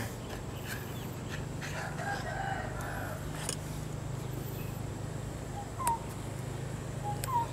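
A rooster crowing, over a steady low hum. Two short, sharp clicks come about six seconds in and again near the end.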